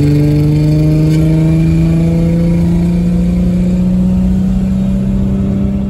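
1989 Ford Thunderbird Super Coupe's supercharged 3.8-litre V6 pulling hard under boost, its note rising steadily in pitch as the revs climb, heard from inside the cabin.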